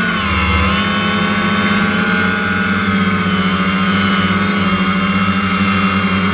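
Multicopter's electric motors and propellers buzzing close to the onboard camera, several pitches shifting up and down together as the throttle changes, with a brief dip in pitch about half a second in.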